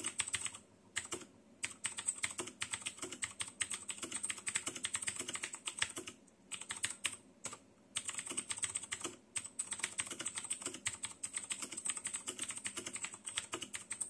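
Continuous fast typing on a Royal Kludge RK61 60% mechanical keyboard: a dense run of quick key clicks, with a few brief pauses.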